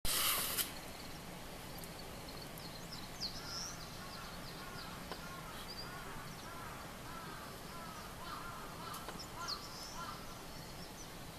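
Songbirds calling: high, thin chirps and, from a few seconds in, a run of short arched notes repeated over and over for several seconds. A brief loud rush of noise opens it.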